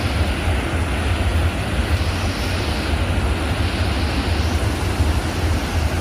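Steady roar of the Athirapally waterfall, an even rush of falling water with a strong deep rumble underneath and no breaks.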